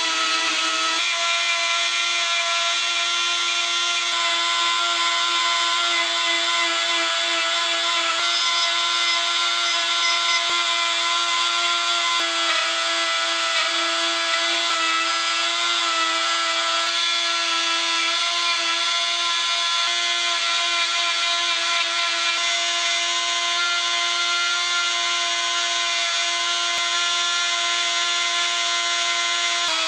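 Flexible-shaft rotary carving tool running at a steady high speed, a constant whine over a gritty hiss as the burr grinds away cedar.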